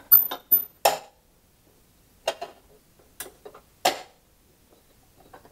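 Several scattered light clicks and knocks as a rubber V-belt is worked around the metal pulleys of a riding mower's cutting deck. The sharpest come about a second in and about four seconds in.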